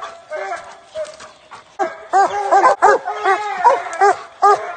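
Hounds barking treed: sparse barks at first, then from about two seconds in a rapid run of short, loud barks from more than one dog, the chop of dogs holding their quarry up a tree.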